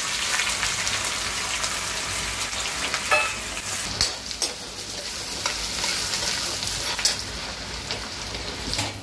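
Chopped onions sizzling as they fry in hot oil in a steel kadhai, stirred with a metal spoon that clinks against the pan a few times.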